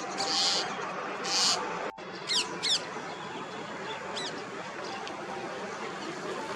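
Wild birds calling: two harsh, raspy high calls, then two quick high notes that fall steeply in pitch a little after two seconds, and a pair of fainter falling notes around four seconds in, over steady outdoor background noise.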